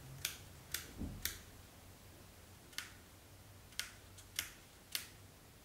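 Sony RX10-series camera buttons and controls clicking as they are pressed, about seven short sharp clicks spaced unevenly, with a soft dull bump about a second in.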